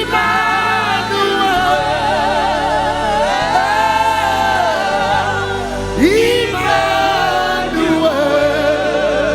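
Gospel worship music: long sustained sung notes with a wide vibrato, choir-like, over a steady low accompaniment.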